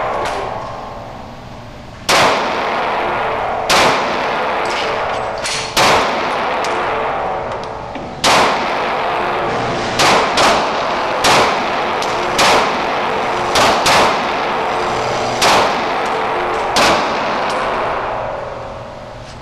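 Firearm shots at a shooting range, about a dozen fired at uneven intervals, sometimes two or three in quick succession. Each is a sharp crack followed by an echoing tail.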